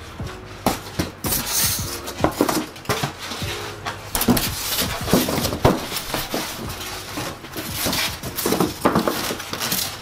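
Polystyrene foam packing inserts being pushed and pressed back into a cardboard box by hand: irregular rubbing, rustling and knocks of foam against cardboard.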